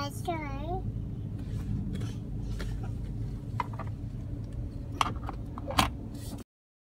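A toddler's short sing-song vocal glide, then a low steady hum in the car cabin with a few light clicks and taps as the Mini Cooper's centre-console switches are handled. The sound cuts off abruptly near the end.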